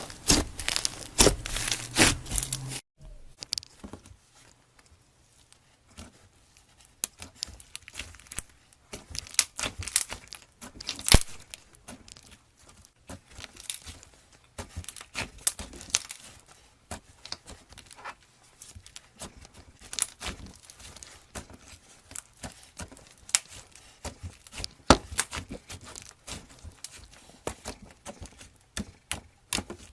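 Slime being squeezed and poked by hand, giving irregular crackling and popping clicks. The clicks come thick and loud for the first few seconds, then thin out into scattered pops.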